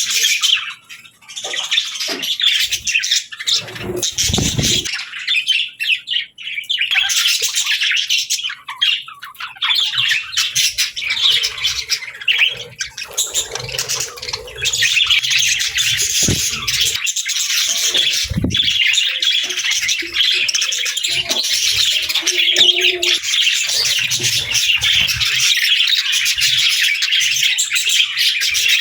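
Budgies (budgerigars) chirping and chattering in a dense stream of high, quick chirps and squawks that becomes busier and continuous about halfway through, with a couple of brief low thumps.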